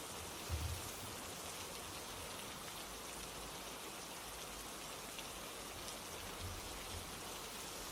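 Steady rain falling, an even hiss without a break. A brief low thump about half a second in, with fainter low thumps near the end.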